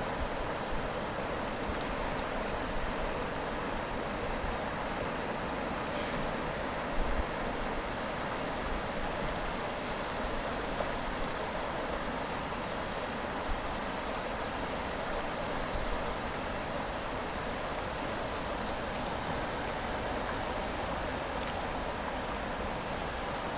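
River water rushing steadily over and around rocks in a riffle.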